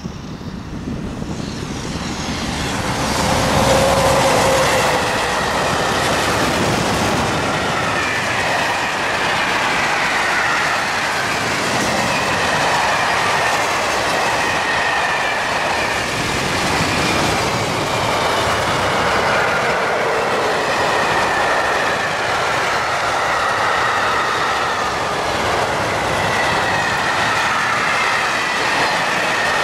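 Electric-hauled freight train passing close: the steady rumble and clatter of freight wagons rolling over the track, growing louder over the first few seconds as it draws near. High wavering wheel squeal runs through it.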